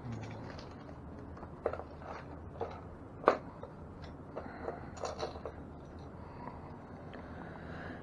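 Scattered light clicks and knocks of hand tools and metal bicycle parts being handled during e-bike brake and wheel work, the sharpest click a little over three seconds in.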